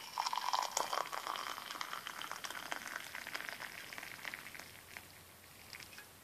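Hot water poured from a kettle in a thin stream into a glass mug of loose tea, loudest at first and tapering off, stopping shortly before the end.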